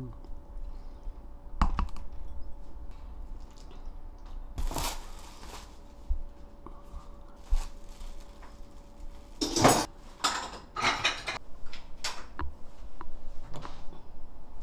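Scattered clinks and knocks of a metal spoon and dishes on the table, the loudest about two-thirds of the way through, over a faint steady hum.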